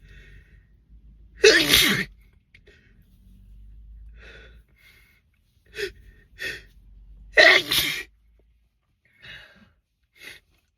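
A man sneezing twice, loud spraying sneezes about six seconds apart, inside a car. Short sharp breaths come before the second sneeze and after it.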